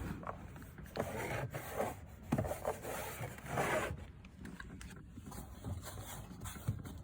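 Hands pulling and working at a Fiat 500's plastic interior door card, irregular rubbing and scraping with a few light clicks.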